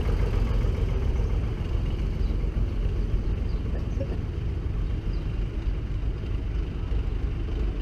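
Vintage tractor engines running, a steady low rumble, as one tractor drives past close by and another approaches.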